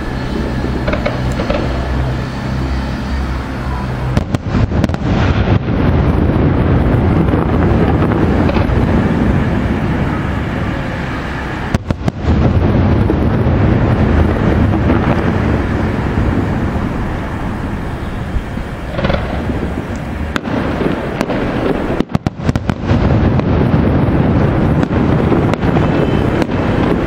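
Aerial fireworks display: a dense, continuous barrage of shells launching and bursting, heavy in the low booms. The barrage thickens about four seconds in, and the sound cuts out briefly a few times.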